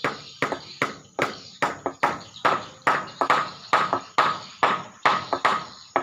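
Swiftlets at a swiftlet house giving rapid, rhythmic chirping calls, about four sharp chirps a second.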